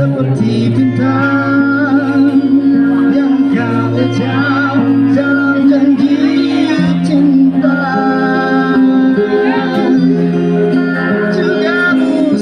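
A child singing in a high voice with wavering vibrato, over an accompaniment of long held bass chords that change every few seconds.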